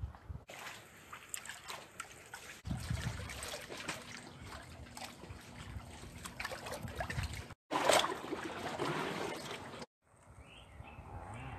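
Sea water sloshing and trickling against wooden wharf piles and steps, heard in several short clips joined by abrupt cuts.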